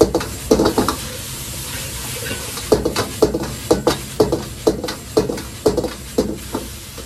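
Metal ladle knocking and scraping against a wok in quick strokes, about two a second, as sliced pork and onion are stir-fried, with a steady sizzle and the low rumble of the gas wok burner underneath. The strokes pause for a couple of seconds about a second in, then resume; the sauce is being cooked down onto the meat.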